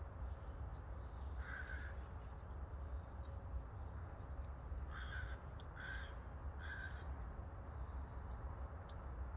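Bird calls over a steady low rumble: one short harsh call about a second and a half in, then three more evenly spaced about a second apart, with a few faint clicks.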